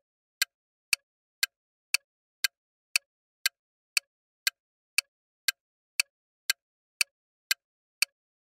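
Countdown timer sound effect: sharp, evenly spaced ticks, two a second, with silence between them.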